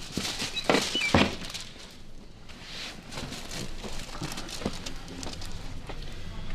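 A person turning over on a padded treatment table: rustling and creaking, with two louder knocks about a second in, then lighter shuffling and small clicks.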